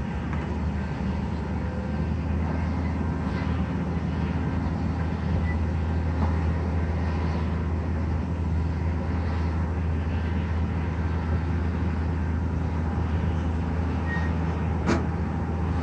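Steady low engine drone from heavy construction machinery, with a haze of distant city traffic behind it and one sharp click near the end.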